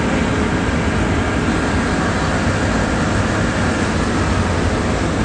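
A concrete mixer truck's diesel engine running steadily, a constant low rumble.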